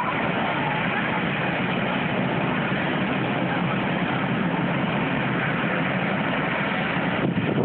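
Medevac helicopter's turbine engines and main rotor running steadily while it sits on the ground before take-off.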